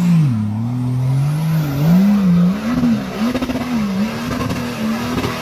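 Nissan Patrol engine revving, its pitch rising and falling repeatedly as the driver works the throttle off-road in mud.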